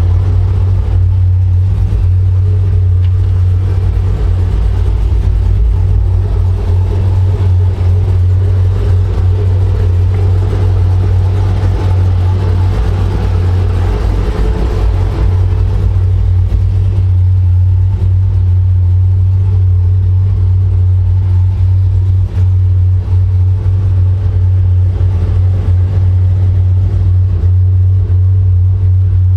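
Supercharged 2010 Chevrolet Camaro SS V8 engine and exhaust running at a steady speed during driving, a constant low drone with no big revs.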